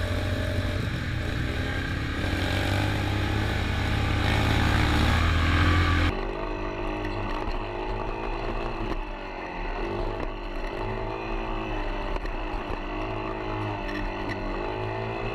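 Off-road vehicle engine running on the trail, heard through a helmet- or vehicle-mounted action camera with heavy rumble and wind noise. About six seconds in the sound changes abruptly, and the engine note then rises and falls as the throttle is worked.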